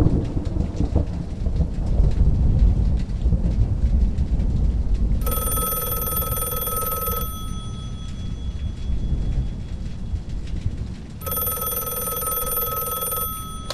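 Thunder rumbling over steady rain, loudest in the first few seconds. A telephone rings twice, each ring about two seconds long and about six seconds apart, an incoming call about to be answered.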